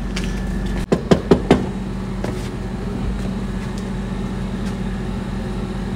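A steady low motor hum, like an engine or generator running nearby, with four quick sharp knocks about a second in.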